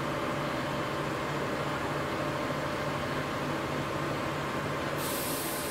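Steady hum and fan noise from powered-up TIG welding equipment, with no arc struck. A high hiss comes in suddenly about five seconds in.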